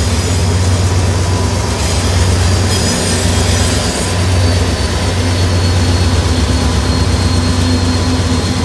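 Norfolk Southern GE Dash 9 diesel-electric locomotive passing close by, its engine running with a loud, steady low drone and a faint thin high whine above it.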